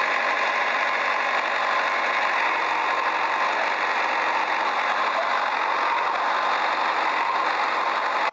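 Small electric motor of a toy tractor whirring steadily.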